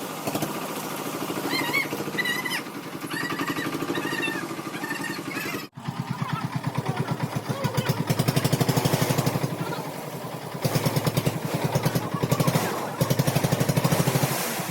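An engine on construction machinery running steadily with a rapid, even pulse. It is cut off for an instant a little before the middle, then comes back louder.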